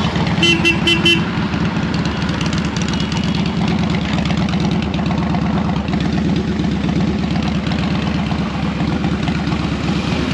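A vehicle horn gives a quick run of short beeps about half a second in, over a motorcycle engine running steadily with traffic noise.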